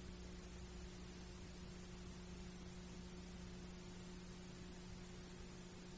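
Faint, steady hiss with a low electrical hum holding two steady pitches, unchanging throughout: the background noise of an analog videotape transfer.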